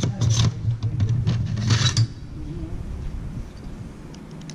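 Steel drill bits clicking and clinking as they are handled at a metal drill index and set into digital calipers, over a low hum that cuts off abruptly about two seconds in.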